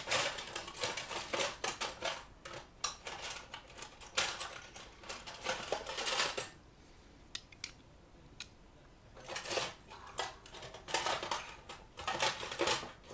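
Small metal parts clinking and rattling as hands handle the socket plate and its hardware on a speaker cabinet. The sound comes in several bursts of a second or two, with short pauses between.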